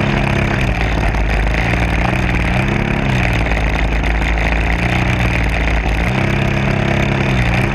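DLE-20 single-cylinder two-stroke gasoline engine of an RC model plane running, heard from a camera on board. Its pitch rises and falls several times under a steady rush of propeller and wind noise.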